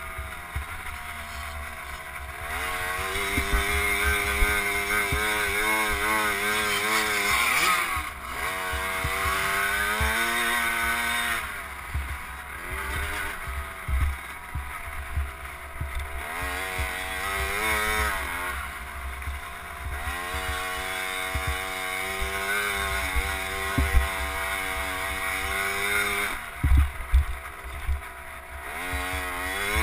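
KTM SX50 two-stroke single-cylinder engine heard from on board, revving up and down again and again as the throttle is opened and closed around the track, with a few sharp drops in revs. Wind rumble and knocks from the bumps on the microphone underneath.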